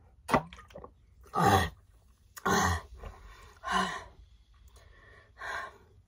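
A woman's heavy gasping breaths, about five loud breaths in and out with short pauses between, as she catches her breath after chugging a bottle of soda.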